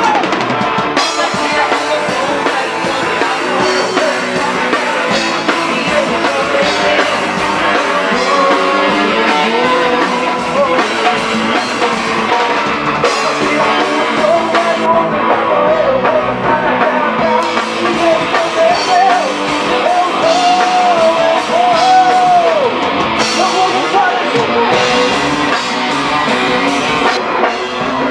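Live band playing a rock-flavoured passage of the song: drum kit keeping a steady beat under guitar, with a bending lead melody in the middle.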